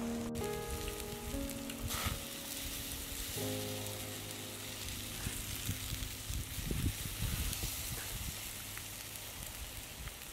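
Spice-marinated pork slices sizzling and crackling on a wire grill over a charcoal stove, a steady hiss with light crackles. Soft music plays under it during the first half.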